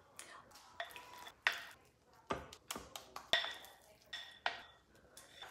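A spatula scraping and knocking against a glass mixing bowl as thick dip is scooped into a glass baking dish. It makes a string of sharp clinks and knocks, several with a short glassy ring.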